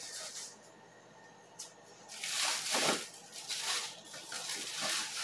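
Plastic bags of frozen sacolé ice pops rustling and crinkling as they are handled and loaded into the vending cart's box. Starts after a short lull and is loudest about two to three seconds in.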